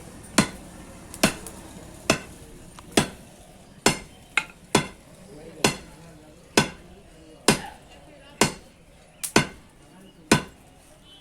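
Hammer blows on metal in a blacksmith's forging rhythm: a steady run of sharp strikes, a little under one a second, each ringing briefly, with a quick double strike about midway and another near the end.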